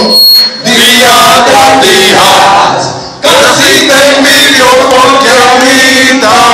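A man singing into a microphone through a PA system, loud, in long held phrases with short breaks about half a second in and again near three seconds in.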